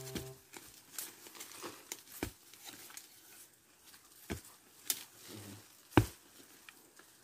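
A wooden-handled digging tool chopping into earth and serut (Streblus asper) roots: about five separate sharp strikes, the loudest about six seconds in, with faint rustling of soil and leaves between. Background music cuts off just at the start.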